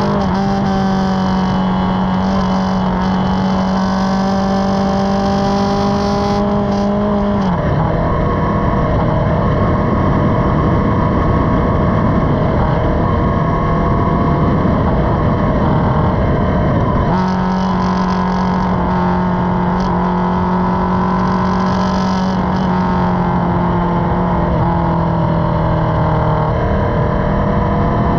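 Motorcycle engine running at a steady cruising speed, heard from on the bike. About seven seconds in, the steady engine tone gives way to a rushing noise for about ten seconds, then the steady tone returns and eases slightly lower near the end.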